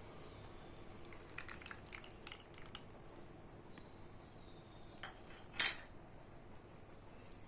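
Light clinks and scrapes of food being handled on a dinner plate, with one sharp, loud clink about five and a half seconds in.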